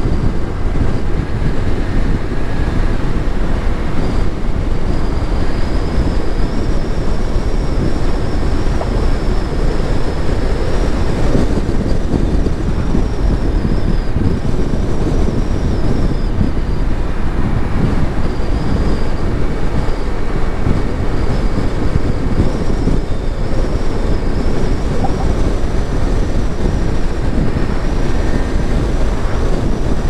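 Steady road and tyre noise of a car driving, heard from inside the car, with a faint high whine that wavers and comes and goes.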